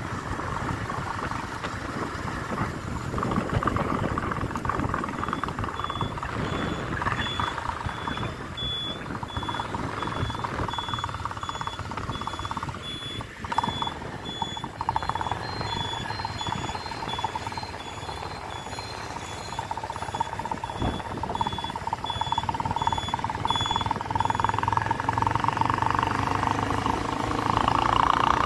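Motorcycle running along the road with wind and road noise. A high electronic beep repeats rapidly from about five seconds in until a few seconds before the end.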